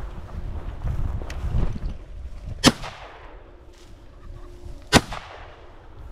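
Two shots from a side-by-side double-barrel shotgun, about two seconds apart, each with a short fading echo: both barrels fired in turn at flushing pheasants. Wind rumbles on the microphone before the shots.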